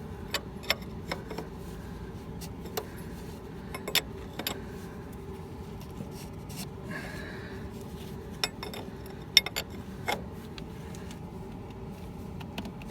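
Scattered metallic clicks and clinks, about a dozen at irregular intervals, from a wrench working on a coolant hose fitting as it is snugged tight. A brief scrape comes about halfway through, over a steady low hum.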